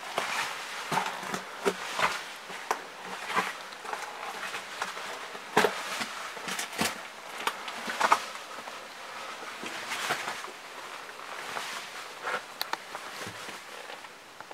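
Irregular scuffs and clicks of a person moving about on a gritty, debris-strewn concrete floor, with sharper clicks about six and eight seconds in.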